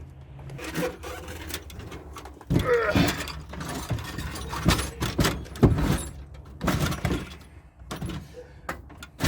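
A toolbox being lifted and set into place in a pickup's cab, with a string of irregular knocks and clunks and some rattling, the loudest bumps about two and a half, five and a half and seven seconds in.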